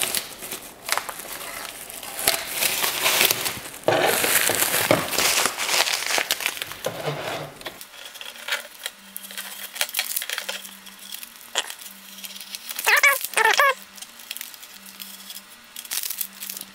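Plastic wrap and blue painter's masking tape crinkling and rustling as they are peeled off a freshly painted model truck bed and balled up, busiest in the first half. Two short squeaks come near the end.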